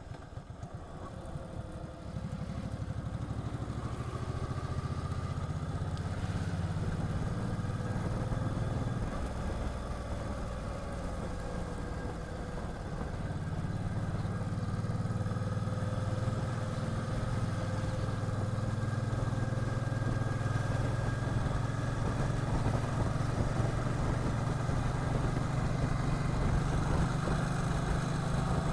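Motorcycle engine running on the road, getting louder about two seconds in as it pulls away, then holding a steady note.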